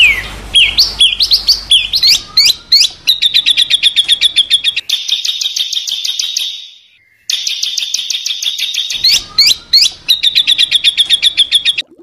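A songbird calling harshly, with sharp up- and down-sweeping chirps that run into fast, even series of repeated chirps, about eight a second. The calling drops out briefly just before seven seconds in and starts again abruptly.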